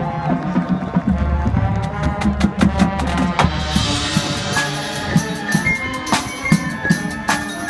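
High school marching band playing its field show, with the drumline's drums striking hard and many hits to the beat. In the second half, wind instruments hold high sustained notes over the drums.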